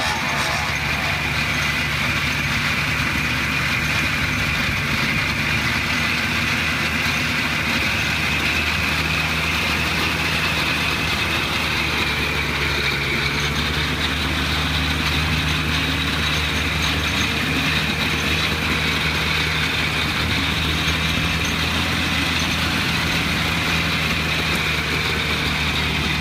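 The Whitelock Tinker Toy's 48-cylinder two-stroke engine, built from Kawasaki KH250 triple-cylinder units, running steadily at an even pitch.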